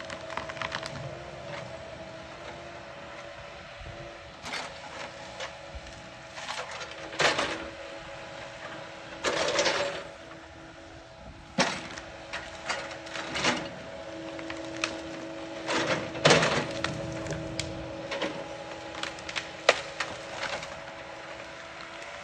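A large tree cracking and splintering as an excavator pushes it down, in irregular snaps that are loudest around the middle, over the machine's steady hum.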